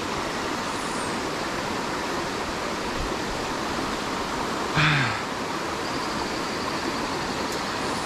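Steady rushing of a rocky stream and waterfall, with a brief falling voice sound, like a grunt, about five seconds in.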